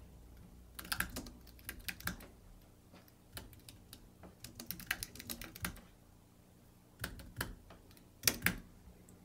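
Computer keyboard typing in several short runs of keystrokes with pauses between, as a password is entered into a form.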